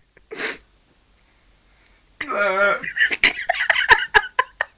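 A man's hiccups: one short, sharp hiccup gasp, then after a pause a voiced yelp and a fast, irregular run of sharp hiccupping clicks and gasps.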